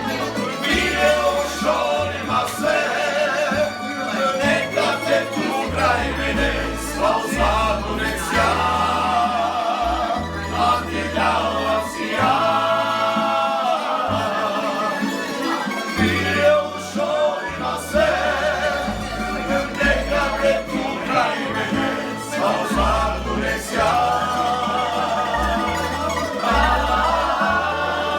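Croatian tamburitza ensemble playing and singing live: plucked tamburica strings over a stepping bass line, with several voices singing together in long, wavering notes.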